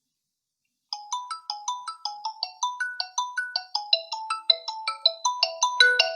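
A preset call ringtone on a Xiaomi Redmi Note 9 playing: a bright melody of short, quick notes, about four a second, starting about a second in.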